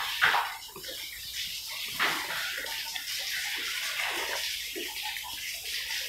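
A pen of young pigs grunting and snuffling in short, irregular sounds over a steady hiss like running water, with two sharper, louder sounds just after the start and about two seconds in.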